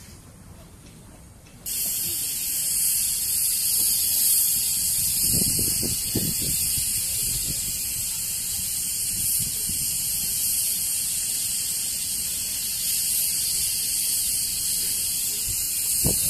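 Steam locomotive letting off steam: a loud, steady hiss that starts suddenly about two seconds in and keeps on, with a few low thuds a few seconds later.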